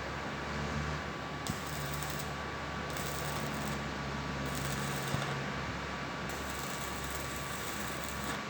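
Electric arc welding: the arc crackling in four short runs of about a second each, over a steady electrical hum.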